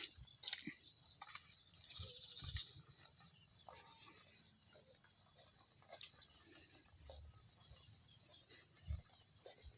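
Steady high-pitched insect chorus, with scattered light clicks and knocks and a soft thump about nine seconds in.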